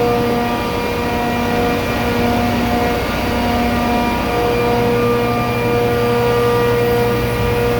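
400 hp low-stage booster compressor on an ammonia (R-717) refrigeration system running steadily. It gives a loud, even drone with a steady hum-like tone that swells and fades every second or so.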